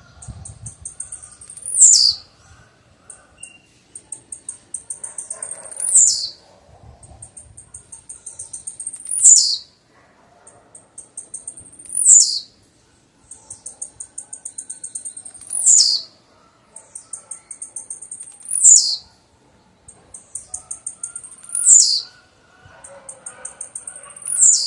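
Blue-black grassquit (tiziu) singing its short song over and over, about every three seconds. Each phrase is a run of rapid high ticks that ends in a loud, sharp note sliding down in pitch.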